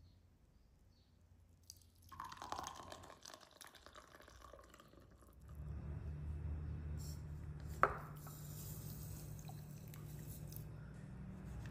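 Water poured from a small glass bowl onto dry seeds in a ceramic bowl, a faint trickle, with a sharp clink just before it. A light scattered rattle comes a couple of seconds in, and a steady low hum runs under the second half.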